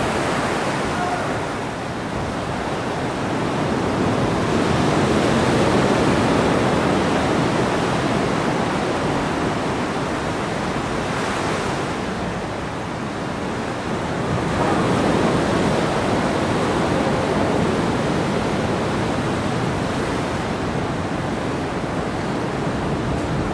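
Ocean surf washing in on the beach, a steady rushing that swells louder twice, about four seconds in and again about fifteen seconds in.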